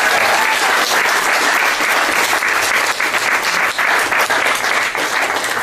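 Audience applauding: dense clapping that begins to thin out near the end.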